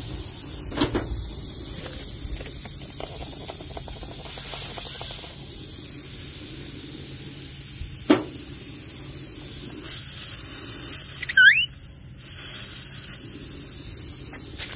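Tire-plug reamer being forced into a nail puncture in a trailer tire's rubber: a single knock about eight seconds in and a short, sharp squeal near the end that dips and then rises in pitch, over a steady background hiss.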